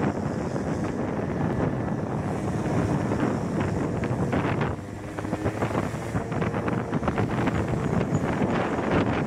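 Wind buffeting the microphone of a camera on a moving motor scooter, with the scooter's engine running underneath. The wind rush drops briefly about halfway through, then comes back.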